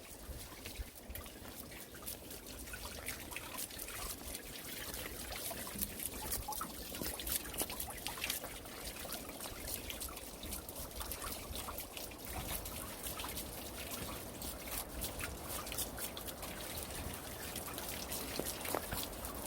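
Water trickling and dribbling, with many small quick drips and splashes over a steady low rumble.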